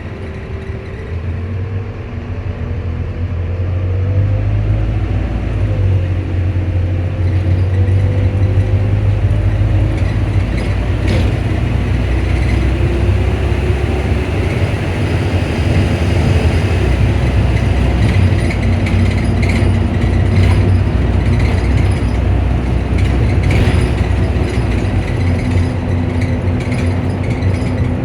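Optare Solo midibus's engine and radiator cooling fan running, a heavy low rumble with a faint whine that wanders up and down in pitch. It grows louder a few seconds in and then holds steady, with a few light clicks.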